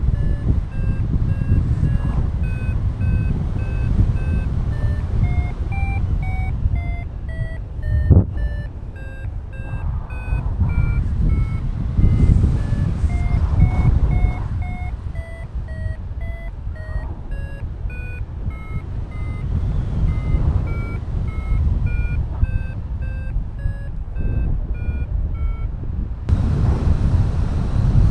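Paragliding variometer beeping in short tones whose pitch steps up and down, the beeping that signals the glider is climbing in lift, over steady wind rush on the microphone. One brief knock about eight seconds in.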